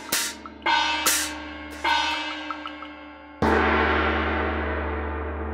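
Sampled Chinese gongs and cymbals from GarageBand's Chinese drum kit struck in turn: four hits in the first two seconds, then a loud crash about three and a half seconds in that rings on and slowly fades, over the low hum of a large gong still ringing.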